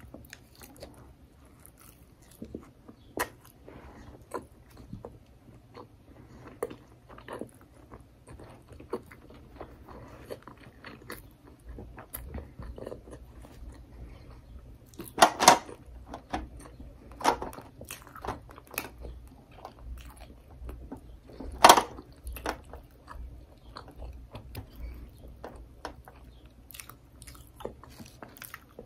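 Close-up eating sounds of a person biting and chewing sushi rolls, with the crunch of tempura flakes and many small wet mouth clicks. Two louder sharp sounds stand out, about halfway through and again some six seconds later.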